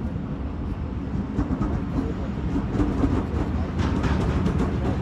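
Freight train passing behind a Siemens ER20 diesel locomotive: a steady low rumble, with the container wagons' wheels clicking over rail joints from about a second in, the clicks growing louder and more frequent near the end.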